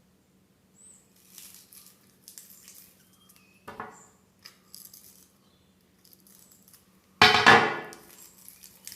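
Small crackles and clicks of the cut old copper winding being pulled out of a ceiling fan stator, with a short knock just under four seconds in and a loud metallic clank a little after seven seconds, over a faint steady hum.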